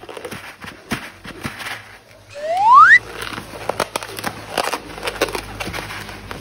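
Sticky slime crackling and clicking as it is handled, with a short squeal rising steadily in pitch about two and a half seconds in, the loudest sound.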